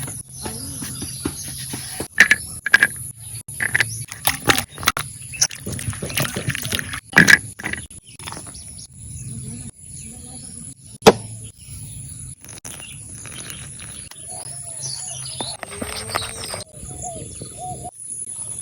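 Scattered knocks, clicks and clatter of food being handled with kitchen utensils, densest in the first half, with one sharp loud knock around the middle, over a steady high-pitched tone and a low hum.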